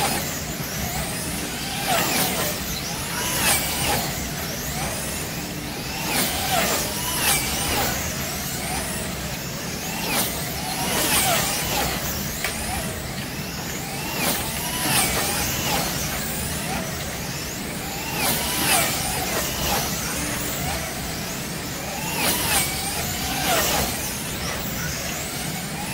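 Wing slot cars racing: their small electric motors whine, gliding up and down in pitch and swelling as cars sweep past every second or so, over a steady low hum.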